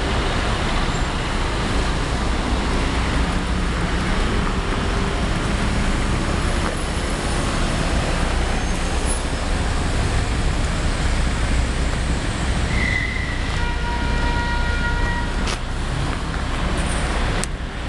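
Steady city road traffic: cars and trucks passing along a busy street. A brief pitched tone rises above the traffic about three-quarters of the way through.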